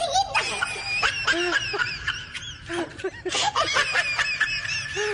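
High-pitched voices giggling and snickering in quick, squeaky rises and falls of pitch.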